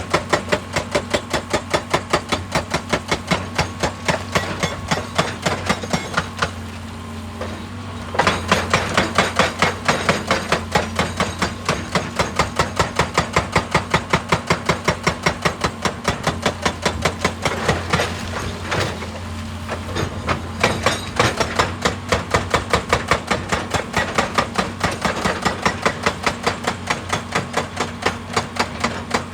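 Excavator-mounted hydraulic breaker hammering rock in rapid, evenly spaced blows several a second, over the excavator's steady engine hum. The hammering stops twice for about a second and a half.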